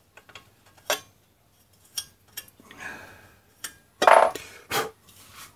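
Hand deburring tool scraping and clicking in a drilled hole in an aluminium charge pipe, chamfering the inside edge, then metal knocks and clinks as the pipe is set down on the steel bench, loudest about four seconds in.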